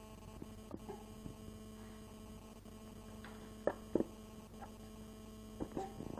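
Steady hum with scattered light knocks of hands and toys against a plastic toy tub; two sharper knocks come about four seconds in.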